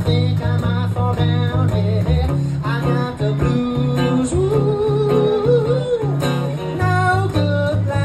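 Blues played on an amplified Taylor T5z electric-acoustic guitar: a repeating low riff under lead phrases, with one long held, wavering note near the middle.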